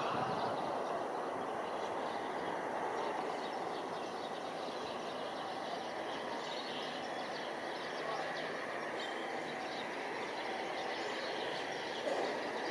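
Steady far-off rumble of a jet airliner landing, heard from several kilometres away over the hum of the surrounding city, swelling slightly near the end.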